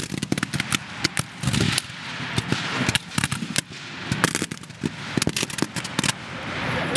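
Reenactors' black-powder muskets firing blanks in a ragged fusillade: many sharp cracks at irregular intervals, several a second, near and far shots overlapping.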